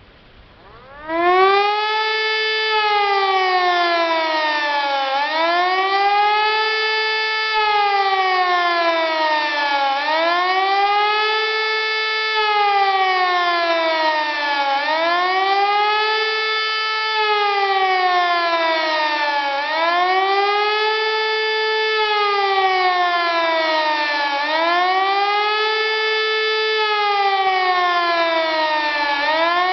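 Civil-defence warning siren sounding the German "Warnung" signal on a test alert: a loud wail that rises quickly and falls more slowly, once about every five seconds. It starts suddenly about a second in.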